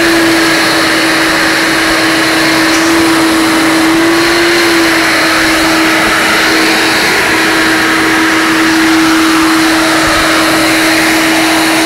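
Vacuum running steadily with its hose held at a window glass to suck up yellow jackets: a loud, even motor hum with rushing air. The pitch wavers slightly about four seconds in.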